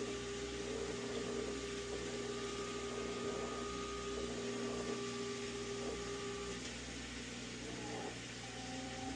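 Amana washing machine in a high-speed spin, a steady motor-and-drum hum with a whine; the whine drops out about six and a half seconds in and the hum goes on a little quieter. The drain and spin cycle is working normally with the newly installed pressure switch.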